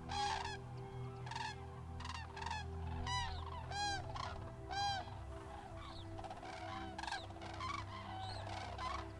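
Common cranes calling: a run of loud, trumpeting calls from several birds, each call rising and falling in pitch. The loudest, clearest calls come about three to five seconds in.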